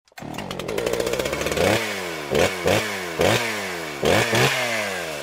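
Engine revving in a series of quick throttle blips, about six of them. Each one jumps up in pitch and then falls away slowly.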